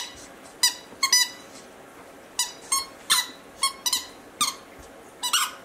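Squeaky dog toy squeaking over and over as a West Highland White Terrier puppy chews it: about ten short, high squeaks at irregular intervals.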